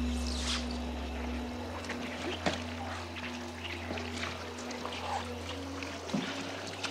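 Water trickling and dripping over a low, held drone from the film score. The deepest part of the drone drops away about a second and a half in.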